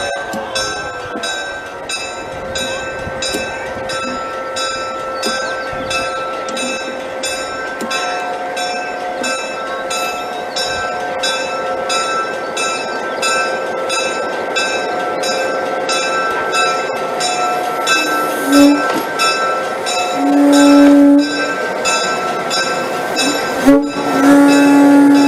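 EMD SW8 switcher locomotive's diesel engine running steadily as the locomotive rolls slowly past. Its air horn sounds a short blast about eighteen seconds in, a blast of about a second two seconds later, and a long blast starting near the end.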